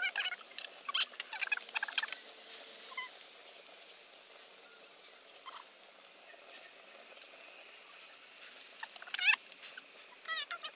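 Fire crackling and popping around a small plastic toy burning on a log, with bursts of sharp pops and short squealing whistles near the start and again near the end, and a quieter hissing stretch with a few pops in between.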